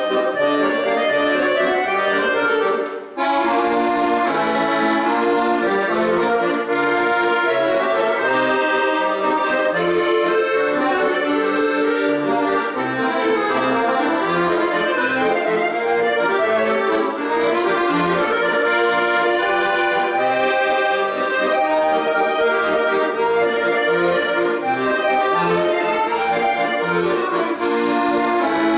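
Accordion playing a piece of many quick notes and chords, with a brief break about three seconds in.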